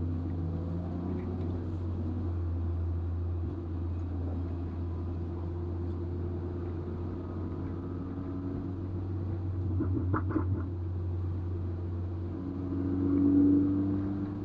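Car engine, a turbocharged four-cylinder Golf R, running at low, steady revs. There are a few clicks about ten seconds in, and near the end the engine note briefly rises and grows louder.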